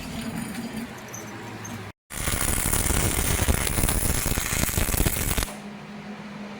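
Hobart 220-volt welder's arc crackling for about three and a half seconds while laying a tack weld on half-inch steel plate. It starts about two seconds in and cuts off suddenly, over a steady low hum.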